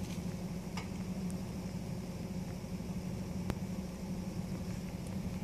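A steady low hum, with one sharp click about three and a half seconds in.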